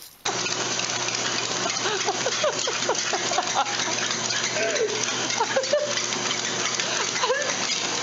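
Treadmill running with a dog walking on its belt: a steady whooshing motor-and-belt noise with a low hum, starting suddenly about a quarter of a second in. Short squeaky rising and falling sounds come and go over it.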